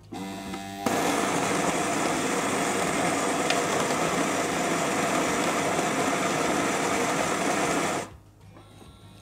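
Siemens EQ900 espresso machine's electronic burr grinder drawing in coffee beans and grinding them, a quiet grinder, for a Caffè Crema at the finest grind setting. A short motor hum starts it; about a second in the grinding sets in, runs evenly for about seven seconds and stops near the end.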